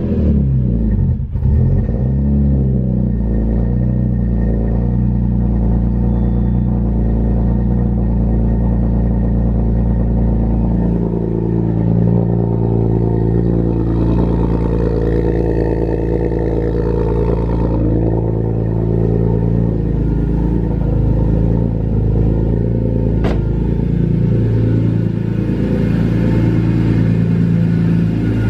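BMW E46 M3's S54 straight-six, with a loud exhaust, idling cold on its first start after the throttle bodies and idle control valve were cleaned and new throttle position sensors fitted. The idle wavers for the first several seconds, then settles into a steady idle: a little rough, but idling well.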